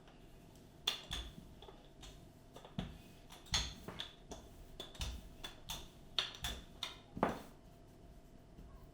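Irregular taps and knocks, about a dozen, of hands patting and pressing a round of khachapuri dough against a work surface, with a faint steady hum underneath.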